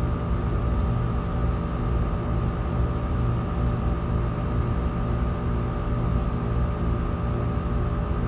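TempStar central air conditioner outdoor unit running in cooling mode: a steady drone of compressor and condenser fan, with a low hum and a faint steady whine above it.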